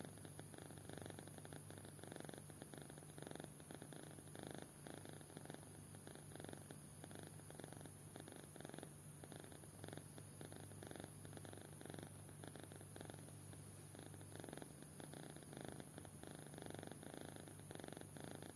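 Sleeping kitten snoring softly, a faint rhythmic rasp with each breath.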